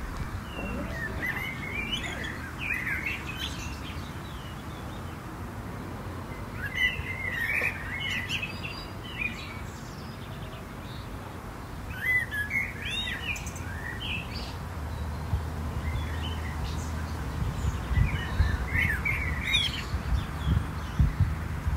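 A songbird singing short warbling phrases, one every five or six seconds, over steady low outdoor background noise.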